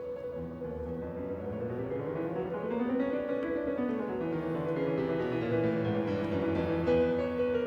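Slow classical-style keyboard music: held chords, with a line of notes that climbs and then falls back.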